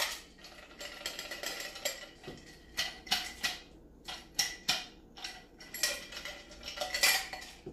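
Ice cubes clinking and clattering as they are tipped from a mixing glass into a metal cocktail shaker tin: a run of separate sharp clinks, about two a second.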